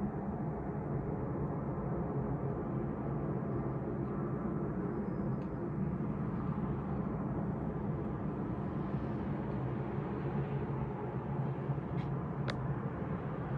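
A steady low hum over the city, unchanging in level, strongest in the low range. It is the unexplained drone that residents report going on for hours at night. A couple of faint clicks come near the end.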